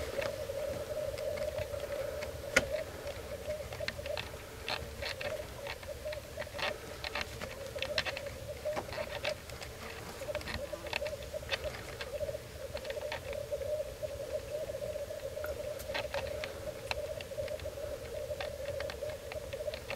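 Black grouse cocks lekking: a continuous low bubbling, cooing chorus, broken by frequent short sharp sounds, the loudest about two and a half seconds in.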